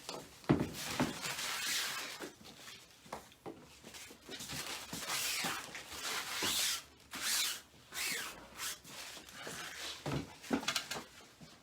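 Rustling and rubbing of items being handled on a tabletop, with a few sharp knocks as things are set down, the clearest about half a second in and near the end.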